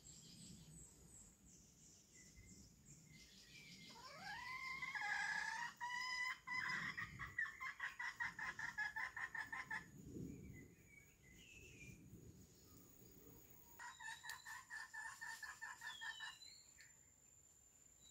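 Chicken calls: a call rising in pitch about four seconds in runs straight into a long series of rapid, evenly spaced clucking pulses. A second, shorter run of pulses follows near the end, with faint small-bird chirps.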